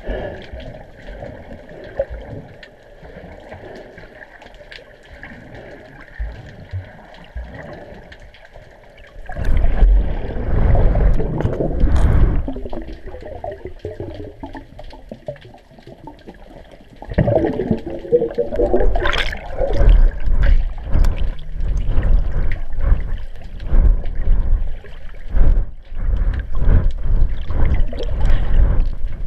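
Muffled water sloshing and gurgling around a submerged action camera as a swimmer moves through the water. It is fairly quiet at first, then turns loud and churning about a third of the way in. A burst of bubbling comes a little past halfway, and the churning runs on from there.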